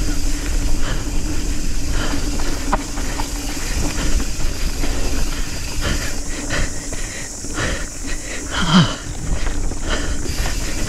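Nukeproof Scout 275 hardtail mountain bike ridden fast down a dirt trail: steady rush of wind and tyre noise with many short knocks and rattles from the bike over bumps. A short falling-pitch sound comes about nine seconds in.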